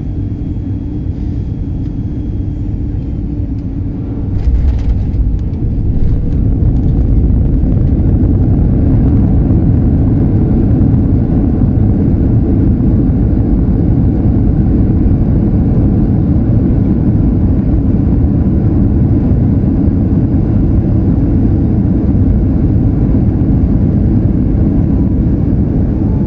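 Cabin noise of a Ryanair Boeing 737 landing: a steady low roar, a jolt with a few knocks about four to five seconds in as the wheels touch down, then a louder, heavier roar that holds steady as the jet rolls out on the runway.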